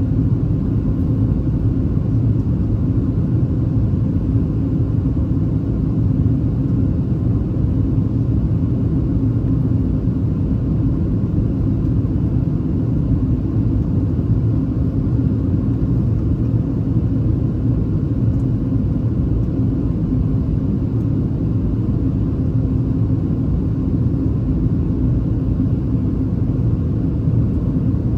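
Boeing 737-700 cabin noise in flight: the steady rumble of the CFM56-7B engines and airflow, with a low hum running through it.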